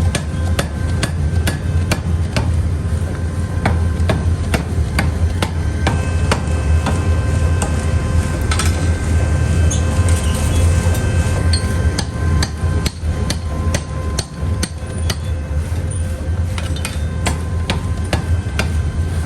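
Metal being hammered in a forging workshop: repeated sharp strikes, a few each second and unevenly spaced. A steady low machine hum runs underneath.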